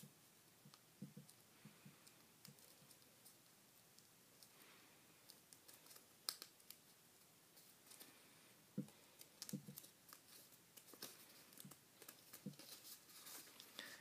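Faint crinkling and scattered soft ticks of folded paper being handled and shaped by hand, getting busier near the end.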